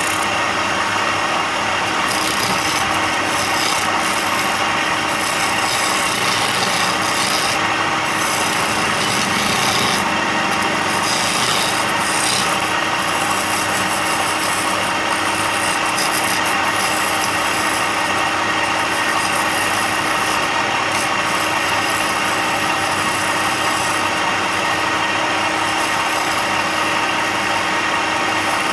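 Electric power tool running steadily while abrading wood: a continuous motor hum with a rough rasping of wood being worn away.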